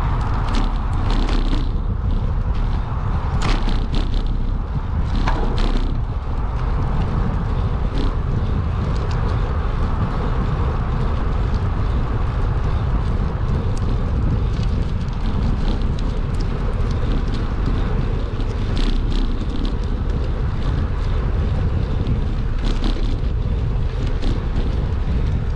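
Wind buffeting the microphone of a camera on a moving bicycle, with the bike rattling and clicking as it jolts over a rough, bumpy pathway. The rattles cluster near the start and again about two-thirds of the way through.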